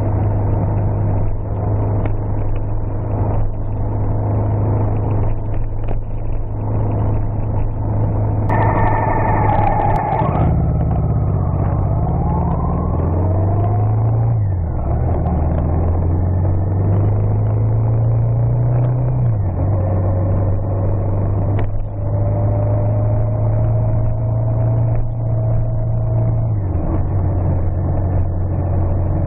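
Car engine running while driving, heard from inside the cabin: a steady low hum whose pitch climbs slowly and then drops, three or four times, with a brief brighter, higher sound a few seconds before the first drop.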